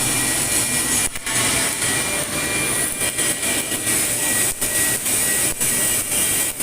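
Steady arc hiss of automatic pipeline welding, broken by several short dips.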